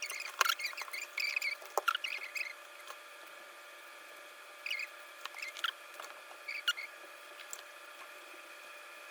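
Short squeaky whirs and small plastic clicks from an Axial SCX24 Deadbolt mini RC crawler as its steering is worked and its drivetrain is handled, over a faint steady high whine. The drive motor gives nothing, because the motor is bad.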